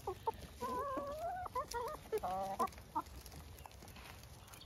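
Hens clucking as they feed: several short clucks and a drawn-out, wavering call about a second in, with a few sharp clicks. The flock goes quieter after about three seconds.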